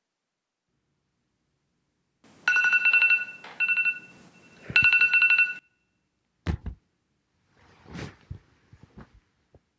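Phone ringing with a fast-trilling electronic ring tone in three bursts, the middle one short. It is followed about six and a half seconds in by a dull thump, then faint rustles.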